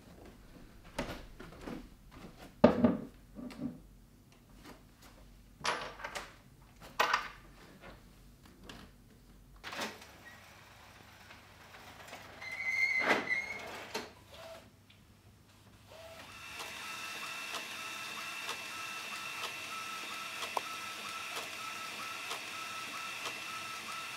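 Knocks and taps as a wicker basket and small objects are set down on a wooden dresser, the loudest about three seconds in. About halfway through a short high tone sounds, and about two-thirds of the way in an Epson inkjet photo printer starts and runs steadily, feeding out a photo print.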